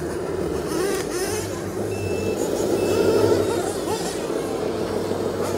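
Radio-controlled model dump truck tipping its bed, its hydraulic pump running with a steady whine. Two short high beeps sound about two seconds in.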